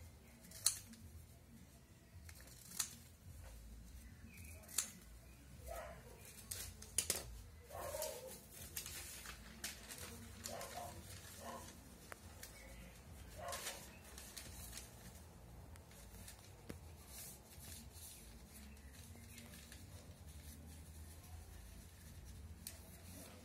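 Scissors snipping paper: sharp snips about every two seconds through the first seven seconds, followed by paper rustling and handling.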